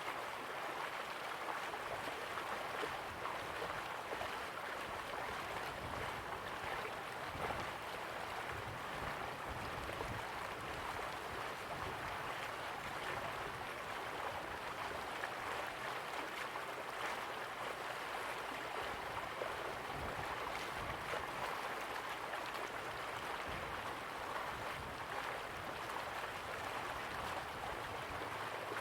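River water flowing slowly, a steady even rush with a fine gurgling texture.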